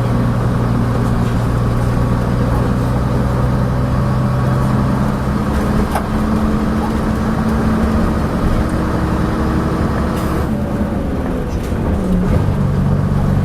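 Leyland Atlantean double-decker bus engine running under way, heard on board, with its note shifting about five seconds in and again near the end as the revs change.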